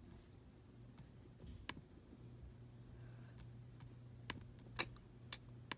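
Faint, sparse clicking of a computer's pointer buttons as on-screen options are selected: a few sharp clicks spread a second or so apart, with fainter ones between, over a low steady hum.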